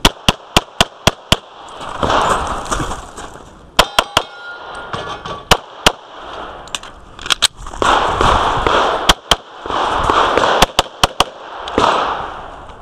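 Glock 35 pistol in .40 S&W fired in fast strings: six quick shots at about four a second, then pairs and triplets of shots through the rest, about twenty in all. Between strings there is a louder rushing noise.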